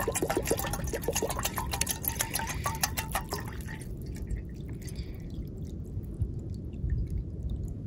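Water glugging out of a large plastic bottle into an aluminium camping pot, in rapid gulps. About three and a half seconds in, the glugging thins to a softer, steadier pour.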